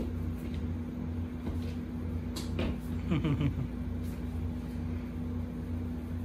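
Broom bristles brushing and scraping on a hardwood floor as a kitten bats and grabs at the broom head, with a few sharp knocks about two and a half seconds in, over a steady low hum.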